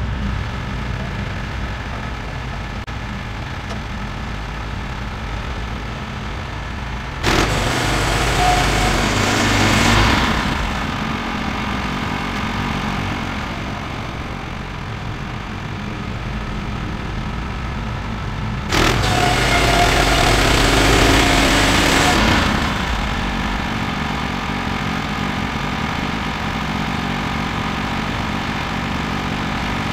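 Woodland Mills HM126 bandsaw mill's gas engine idling steadily. Twice, about a quarter and two-thirds of the way through, a loud rushing noise comes in suddenly over it for about three seconds and then fades back to the idle.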